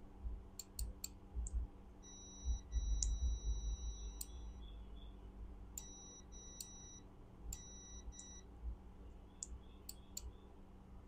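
Digital multimeter's continuity beeper sounding: one long beep, then two shorter ones, each time the probes show continuity across a pressed micro switch from a golf cart forward/reverse switch. The beeps mean this normally open switch closes and is working correctly. Light sharp clicks come in between.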